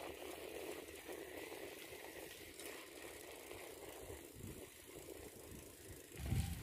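Faint outdoor background noise, with wind starting to buffet the microphone as a low rumble near the end.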